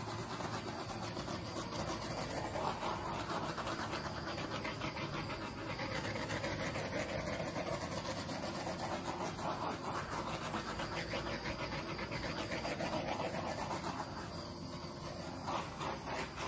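Small handheld torch burning with a steady hissing flame as it is passed over wet acrylic pour paint.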